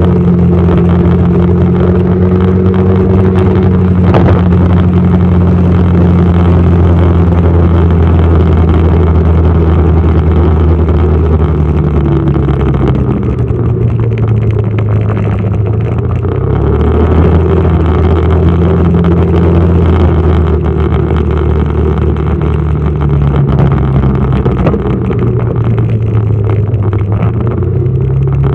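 Motorcycle engine running while riding, a steady note that drops and rises several times from about halfway through as the speed changes.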